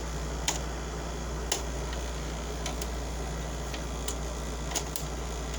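2007 Frigidaire 5200 BTU window air conditioner running: the steady low hum of its Hitachi Highly rotary compressor under the fan's airflow, with a few light ticks.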